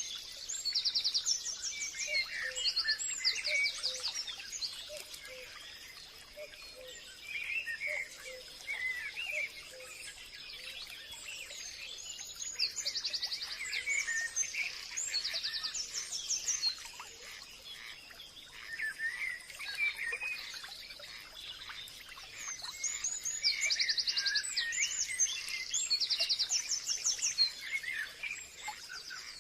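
Forest birdsong: several birds chirping, with bursts of rapid high trills every few seconds over a faint steady high-pitched hum.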